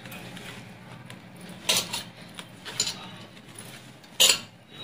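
Hand mixing shredded cabbage with a spiced flour batter in a bowl, with glass bangles on the wrist clinking a few sharp times, the loudest near the end.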